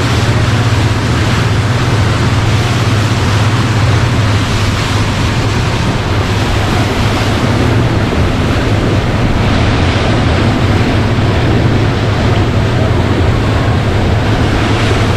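A boat's engine running steadily as a constant low drone, under rushing wind on the microphone and water washing past the hull.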